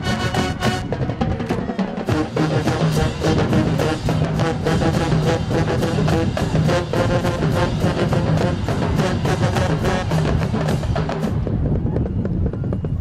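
College marching band playing a halftime show: brass with sousaphones over steady marching drums. For the last second or two the sound thins and loses its high end.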